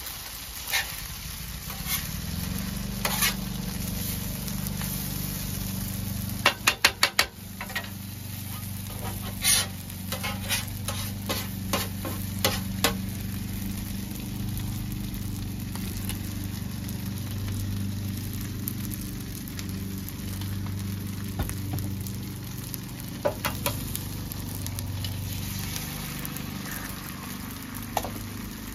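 Fried rice sizzling on a Pit Boss portable flat-top griddle, with a metal spatula scraping and clacking on the steel cooktop in scattered clusters, including a quick rattle of taps about seven seconds in. A low steady hum runs underneath.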